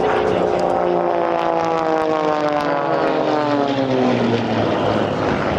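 Six-cylinder Lycoming-engined aerobatic propeller planes flying a fast pass, the engine and propeller note falling steadily in pitch as they go by. The note thins out near the end.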